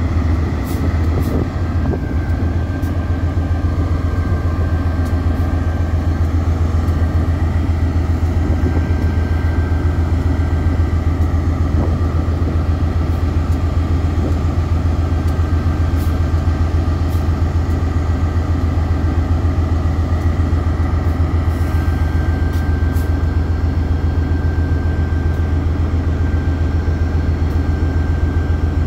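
Diesel-electric freight locomotive's engine running steadily at a standstill: a deep, even hum with a faint high whine over it.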